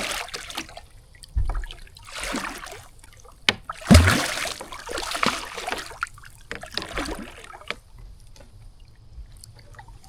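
Catfish thrashing and splashing water against the kayak in several short bursts, with a heavy thump about four seconds in, then water trickling.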